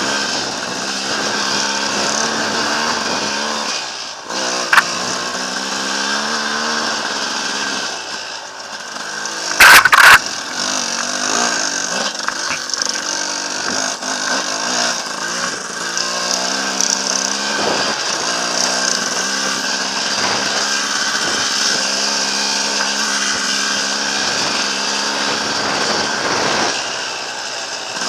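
Enduro dirt bike engine running on a rocky trail, its pitch rising and falling with the throttle. A short, very loud thump comes just under ten seconds in.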